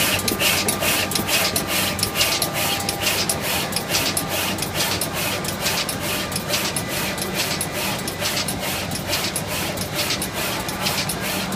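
High-speed SMT pick-and-place machine placing LEDs onto tube-light boards: a rapid, even run of clicks, about three to four a second, from its placement heads and feeders over a steady machine hum.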